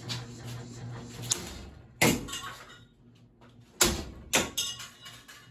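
Metal blade arms clanking hard against a ceiling fan as it is being wrecked: several loud, ringing hits, the biggest about two seconds in and near four seconds, with a steady motor hum underneath at first.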